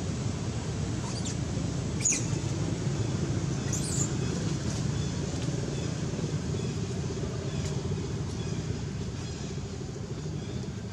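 Steady low outdoor rumble, with a few short high bird chirps about two and four seconds in.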